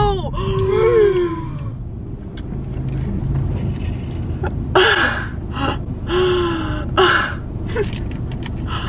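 Women's voices letting out exaggerated gasps and shrieks: a drawn-out cry that rises and falls near the start, then three short breathy yells in the second half. The low steady rumble of a car cabin runs underneath.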